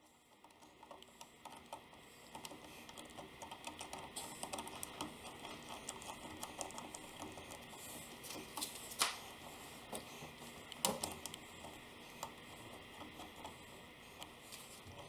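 Small brass nozzle-holder parts being handled and swivelled by hand against the grinder's metal head: faint, scattered clicking and tapping, with two sharper clicks about nine and eleven seconds in.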